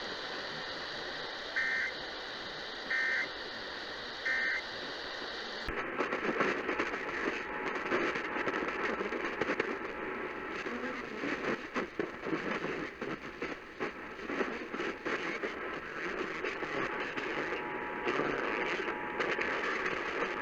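Emergency Alert System end-of-message data bursts, three short two-tone warbles about a second and a half apart over radio hiss. A little over five seconds in, the audio cuts abruptly to noisy, crackling radio reception.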